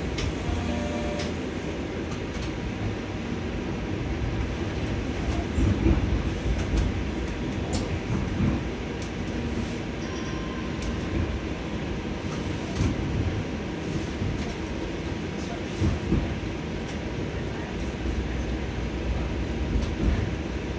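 TTC streetcar heard from inside, rolling along its rails: a steady rumble of wheels and motors, with scattered knocks and clicks from the track.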